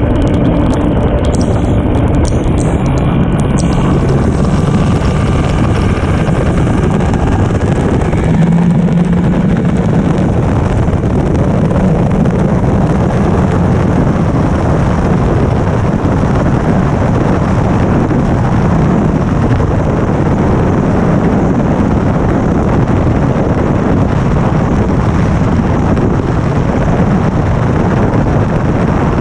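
Yamaha VMAX HPDI two-stroke V6 outboard running at high speed, around 98 mph, pushing a Hydrostream hull. The engine is loud and steady, mixed with wind buffeting on the microphone and the hiss of spray.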